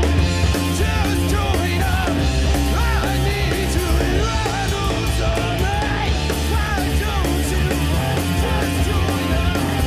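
Punk rock band playing live: loud distorted guitars, bass and drums with steady cymbal hits, and a singer's voice over them.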